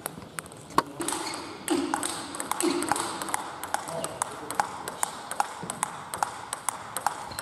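Table tennis rally: the celluloid-type ball clicks sharply off rubber-faced bats and the tabletop, a few hits a second after a sparse first second, with more hits from a neighbouring table.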